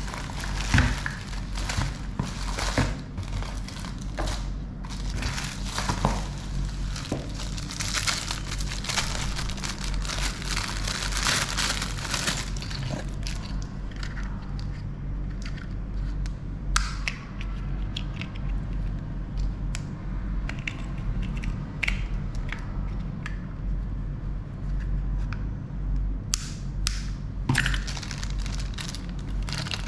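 Packaging being handled: plastic and cardboard crinkling and crackling for about the first half, then scattered clicks and knocks. A steady low hum runs underneath.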